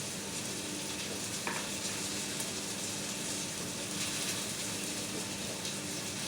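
Steady background hiss with a low, even hum and a few faint ticks: room tone, with no distinct event standing out.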